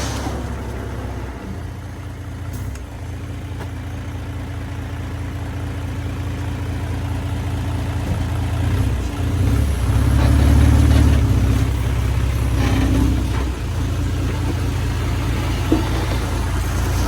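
Heavy diesel earthmoving machinery running with a steady low engine hum, its load rising for a few seconds about halfway through before easing back.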